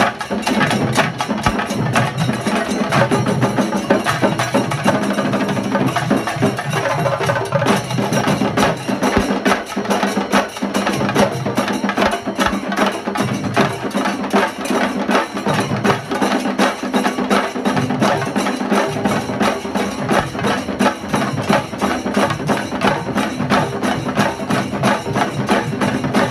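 Chenda drum ensemble of a shinkari melam troupe playing a fast, unbroken rhythm of stick strokes on the drumheads.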